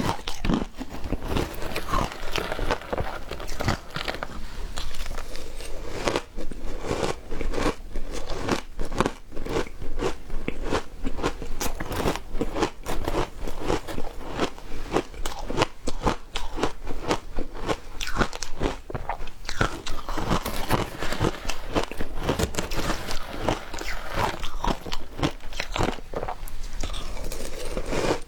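Matcha ice being bitten and chewed: a dense, continuous run of crunches and cracks.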